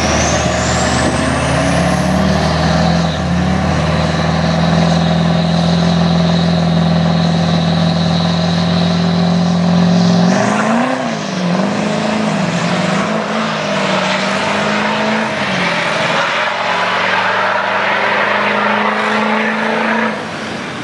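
Turbo-diesel pickup trucks revving hard at the drag-strip starting line, a turbo whistle climbing in pitch and then holding steady as boost builds. About ten seconds in they launch, and the engine note wavers up and down as the trucks pull away down the track, then runs steady.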